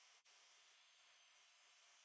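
Faint, steady hiss of an abrasive blast gun in a blast cabinet, blasting a cast iron hibachi panel, with a brief break about a quarter second in as the flow stops and starts again.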